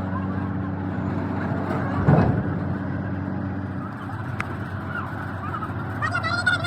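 A steady machine hum, with a sudden low thump about two seconds in and a short honking call near the end.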